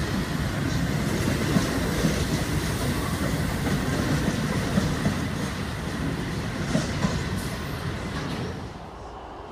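Freight train of bogie hopper wagons rolling past, the wheels clattering over the rails with scattered clicks and a thin steady squeal. The noise falls away sharply near the end as the last wagon clears.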